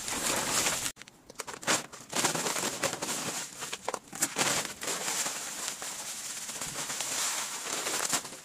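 Plastic rustling and crinkling as a woven sack and a cling-film-wrapped stump are handled, broken by a short gap about a second in. Near the end, river sand pours from the sack into a plastic basin.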